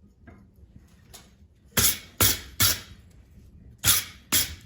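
Hand hammer striking steel on an anvil: five sharp ringing blows, three in quick succession about two seconds in, then two more about a second later.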